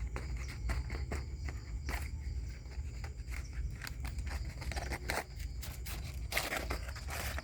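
Irregular rustling and crunching, like steps through undergrowth, over a steady low rumble, with faint steady high-pitched insect tones; the rustling grows denser near the end.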